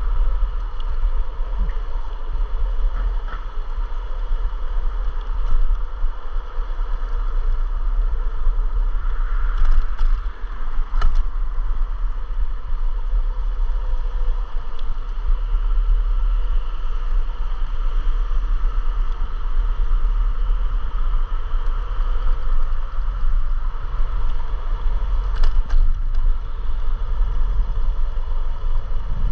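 Electric scooter ride: heavy wind rumble on the microphone over a steady whine, with a few sharp knocks from bumps about ten seconds in and again near the end.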